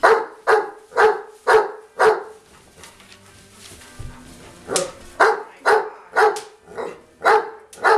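Dog barking repeatedly: five barks about two a second, a pause of a couple of seconds, then about seven more.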